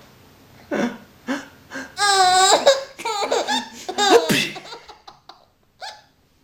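A baby laughing: a few short chuckles, then a long high-pitched laugh in the middle that trails off.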